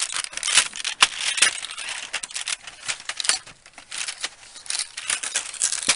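A cardboard chocolate advent calendar being handled by hand: irregular crinkling, crackling and clicking of the packaging as its torn door is worked open and the chocolate is taken out.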